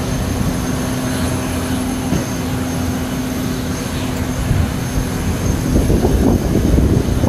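Steady apron noise of a parked jet airliner and its ground-support equipment: a low rumble with a constant hum and a faint high whine, growing rougher and louder in the last second or two.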